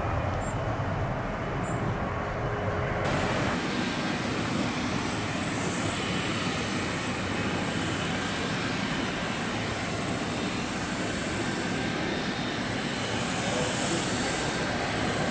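Airbus A380 with four Rolls-Royce Trent 900 engines on final approach: a steady jet rush with a thin high fan whine, swelling briefly near the end. Before that, for the first three seconds until a cut, a Boeing 747 freighter climbing out after takeoff gives a deeper engine rumble.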